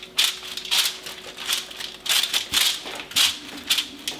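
Aluminium foil lining a baking tray crinkling in short rustles, about twice a second, as fingertips press and dimple flatbread dough on it.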